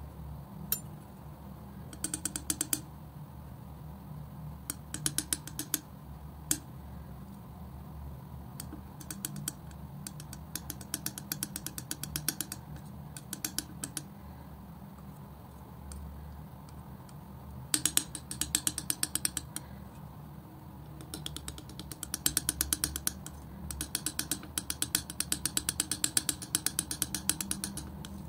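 Metal palette knife scraping and spreading thick wet acrylic paint, in runs of rapid sticky clicks that come and go in bursts, over a steady low hum.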